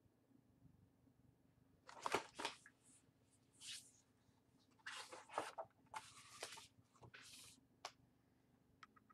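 Faint handling of a hardcover picture book as its pages are turned: a series of short papery rustles and soft bumps.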